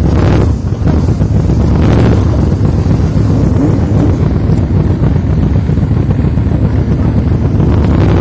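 Motorcycle engines running, mixed with wind buffeting the microphone into a loud, continuous low rumble, with two brief swells about half a second and two seconds in.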